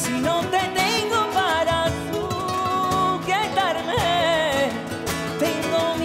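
A man singing a Spanish pop ballad live to his own acoustic guitar, his voice sliding and wavering through ornamented phrases.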